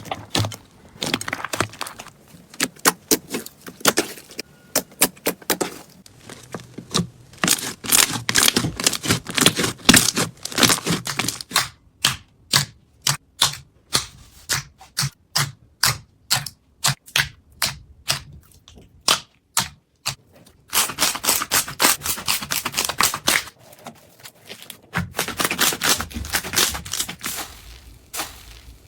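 Slime being squished and pressed, making crackling clicks and pops. Dense crackling gives way midway to a run of separate clicks about two a second, then turns dense again near the end.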